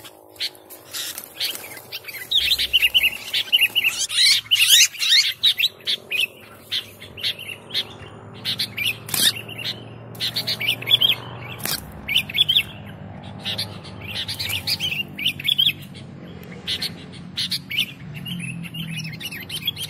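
Sooty-headed bulbul (kutilang) in full, busy song: a fast, nearly unbroken run of short chirping notes, densest a few seconds in.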